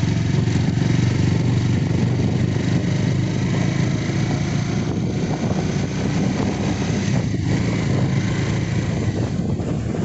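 Motorcycle engine running steadily under way, with an even rush of wind and road noise over the microphone.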